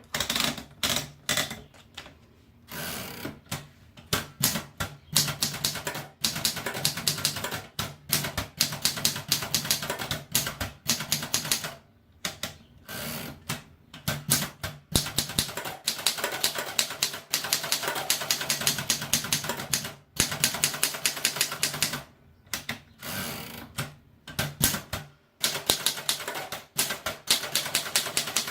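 Olympia Filia manual portable typewriter being typed on. Fast runs of sharp key strikes are broken by short pauses every few seconds.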